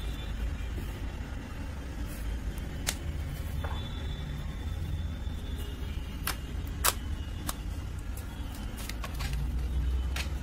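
Homemade toothpaste slime being pressed and stretched by fingers, giving scattered sharp sticky clicks and pops at irregular moments, over a steady low rumble.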